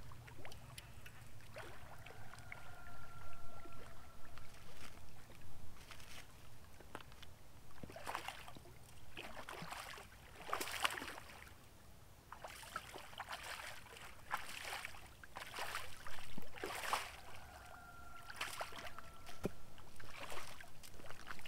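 Hooked blue catfish splashing and thrashing at the surface as it is reeled in toward the bank: a run of splashes every second or few, the loudest in the second half.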